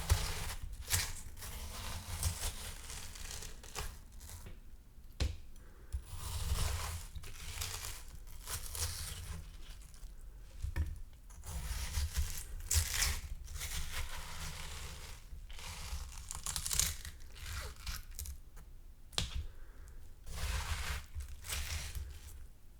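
A spoon scooping into ripe watermelon flesh, scoop after scoop every second or two. Each scoop is a wet tearing crunch as the flesh breaks away.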